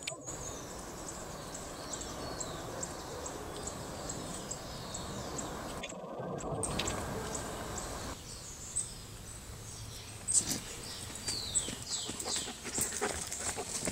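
Wild birds chirping with repeated short descending calls over a faint outdoor hush. Near the end a few sharper taps and rustles come in.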